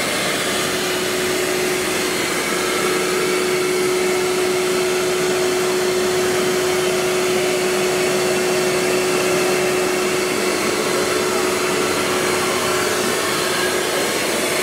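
Four-head CNC wood router running, a steady air-like whir with a steady mid-pitched whine that comes in just after the start and drops out briefly near the end.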